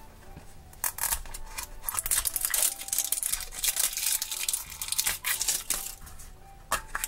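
Plastic shrink-wrap seal being torn and peeled off a Mashems blind capsule, crinkling and crackling in irregular bursts that start about a second in.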